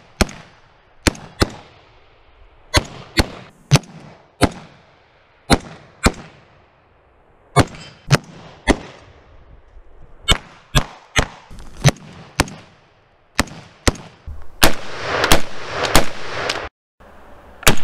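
Short-barrelled .308 AR-10 rifle firing strings of semi-automatic shots, about two dozen sharp reports with echoing tails. Some shots come in quick pairs a fraction of a second apart, others up to a second and a half apart.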